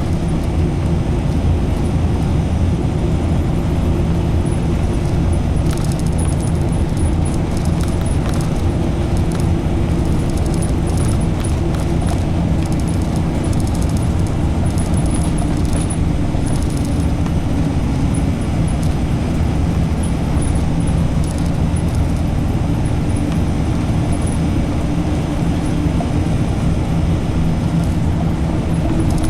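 A route bus running steadily at road speed, heard from inside the cabin: a constant engine drone with tyre and road noise. Faint high-pitched rattles and ticks come and go throughout.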